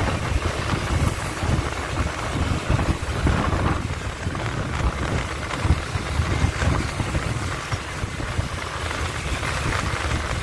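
Wind buffeting the microphone of a moving motorbike, an uneven low rumble over the steady noise of the engine and tyres on the road.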